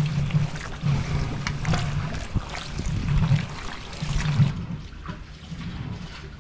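Pork back fat rendering for lard and cracklings, bubbling and crackling as it is stirred with a rhythmic swish about every two-thirds of a second.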